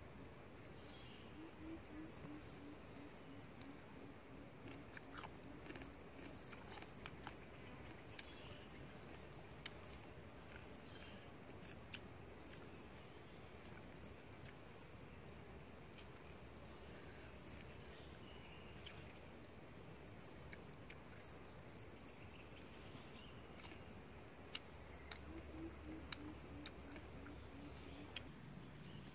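Faint, steady high-pitched buzzing of an insect chorus. A low run of quick pulses comes twice, near the start and near the end, with scattered faint clicks.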